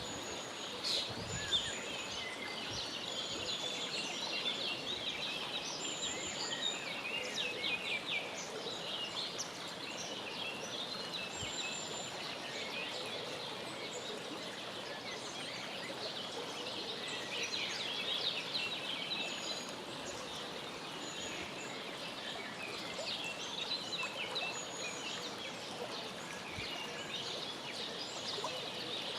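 A brood of mallard ducklings peeping, with many short, high chirps overlapping without a break.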